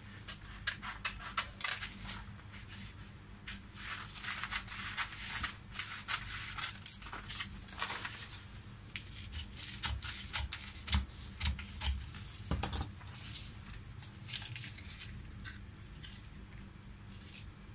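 Scissors snipping through stiff brown pattern paper, with the paper sheets rustling and sliding as they are handled and laid flat. There are a few sharper clicks along the way.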